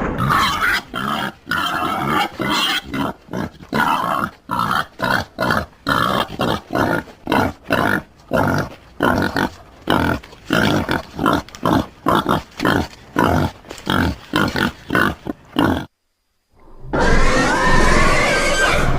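Pig-like monster sound effect built from wild boar recordings: a fast run of short, rough grunts, about three a second. After a brief pause near the end, a longer, louder growling call begins.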